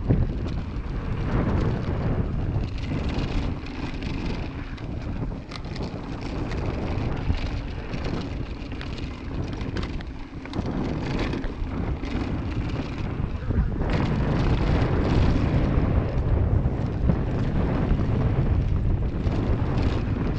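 Mountain bike rolling fast down a dirt trail: wind rushing over the camera's microphone, tyres crunching on the dirt, and scattered rattles and knocks from the bike over bumps. It gets louder about two-thirds of the way through as the speed picks up.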